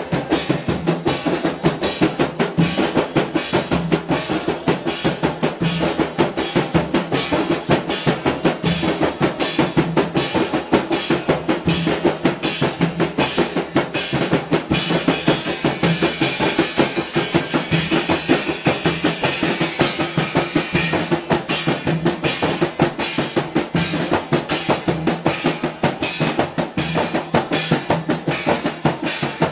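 Rebana Mandar ensemble: large goatskin frame drums (rebana) struck by hand in a fast, dense, interlocking rhythm, with a snare drum played with sticks, a steady stream of strokes without a break.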